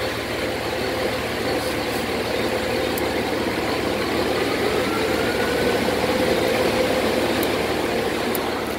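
Dually pickup truck's engine idling steadily, heard from the cab with the driver's window down.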